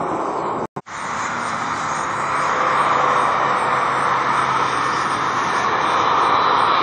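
Jet airliner engines on landing approach: a steady jet noise that cuts out briefly just under a second in, then comes back and grows louder as a twin-engine airliner closes in overhead.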